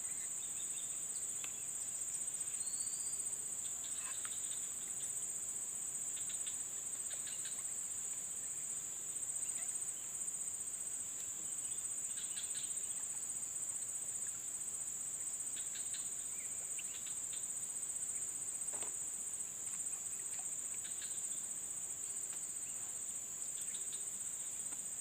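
Insects, crickets or cicadas, droning steadily at one high pitch, with faint short chirps and ticks scattered over it.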